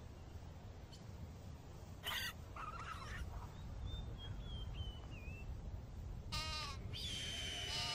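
Goat-like bleating calls: a few short calls and a quickly falling one, then a long, high call near the end, over a low steady rumble.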